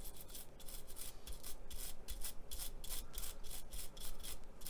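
A pointed tool scratching and scrubbing wetted paint on a small plastic model part in quick repeated strokes, about four or five a second. The water has reactivated the chipping fluid under the gloss orange paint, and the strokes are lifting it off in chips.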